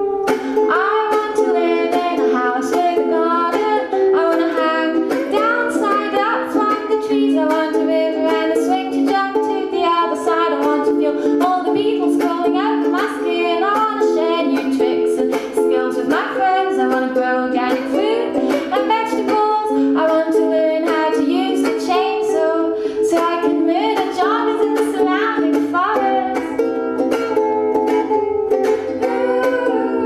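A woman singing while strumming a ukulele, a steady chordal strum under her melody.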